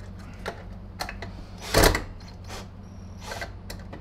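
Scattered clicks and knocks from handling a cordless drill against a metal vacuum cleaner housing while the drill is stopped, with one louder knock a little under two seconds in.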